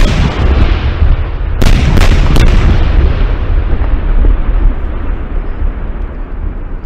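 Aerial fireworks shells bursting: a loud bang right at the start, three more sharp bangs in quick succession about one and a half to two and a half seconds in, then a long rumble that slowly fades.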